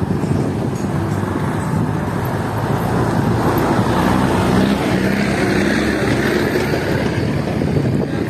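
Steady wind buffeting the microphone, mixed with outdoor traffic noise; a vehicle engine hums a little louder around the middle.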